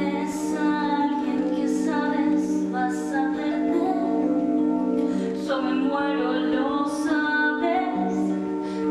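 A woman singing a musical-theatre song over held accompaniment chords.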